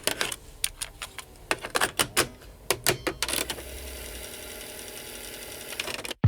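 Rapid, irregular mechanical clicks and clacks, then a steady whirring hum from about three and a half seconds in that cuts off suddenly just before the end.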